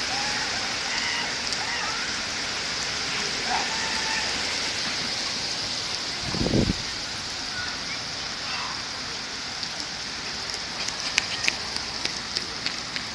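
Heavy thunderstorm rain pouring with a steady hiss, with one short low thump about six seconds in and a few sharp drip clicks near the end.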